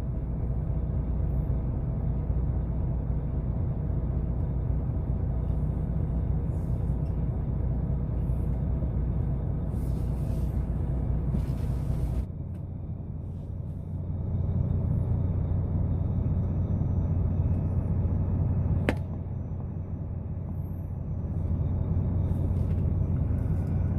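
Heavy truck's diesel engine running with a steady low rumble. The sound shifts abruptly about halfway through, and there is one sharp click near the end.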